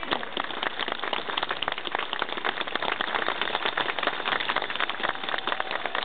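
Crowd applauding, with one person's hand claps close to the microphone standing out as sharp, rapid claps over the dense clapping of the crowd.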